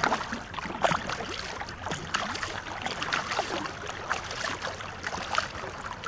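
A crew paddling a war canoe, their bent-shaft paddles dipping and splashing in the river with many irregular splashes and knocks.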